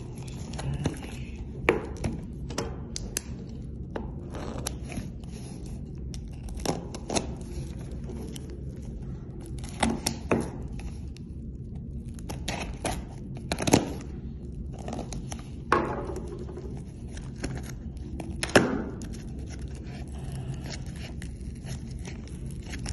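A knife blade cutting and scraping along packing tape on a cardboard box, with tape tearing and the box knocking and scraping as it is handled and pried open. The sound comes as irregular sharp knocks and short scrapes over a steady low hum.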